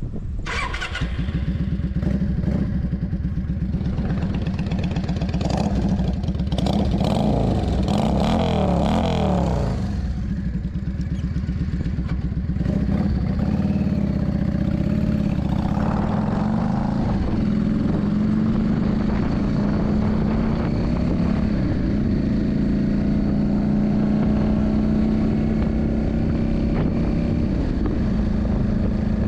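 Yamaha Drag Star 400's V-twin engine running steadily, its pitch rising and falling a few times as the revs change.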